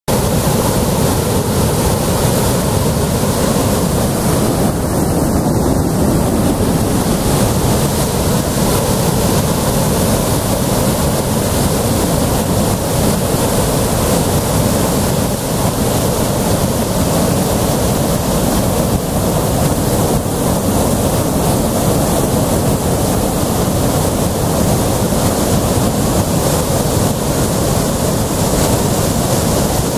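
Loud, steady rush of the Kicking Horse River's whitewater rapids pouring over and around rock ledges.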